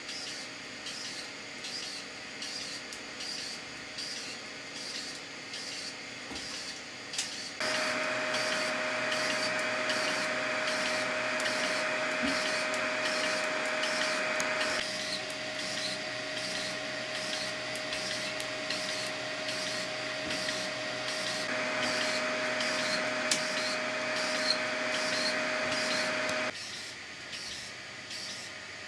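3D printer running an extreme retraction test: its extruder stepper motor drives back and forth in short, evenly repeated strokes, about two to three a second. Twice, for several seconds each time, a louder steady hiss with a hum rises over it.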